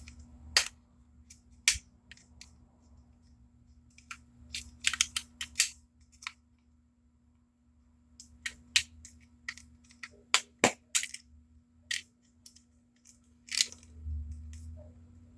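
Sharp plastic clicks and taps, some in quick runs, as a Braun Series 5 electric shaver's housing and small internal parts are pried apart and handled, with a faint steady hum under them.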